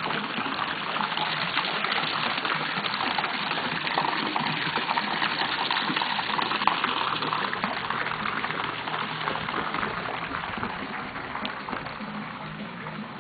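Steady rushing of running water, easing a little near the end.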